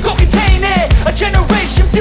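Background song with a steady, heavy drum beat.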